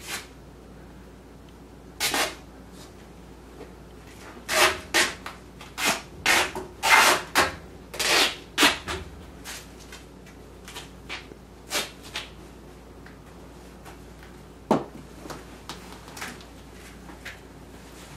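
Scuffling and knocking of two people struggling on a floor: a few sharp noises, then a rapid irregular flurry of them midway, thinning out to scattered fainter ones.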